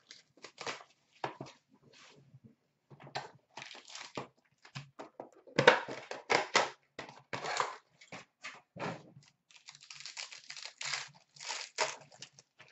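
Trading-card box and pack wrapping crinkling and tearing in irregular bursts as a box of hockey cards is opened, loudest about six seconds in.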